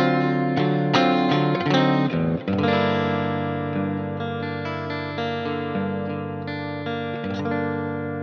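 Saito S-622CS SSH electric guitar played through an amp-simulator plugin with delay and reverb. A quick run of notes gives way, about two and a half seconds in, to a chord left to ring out and slowly fade.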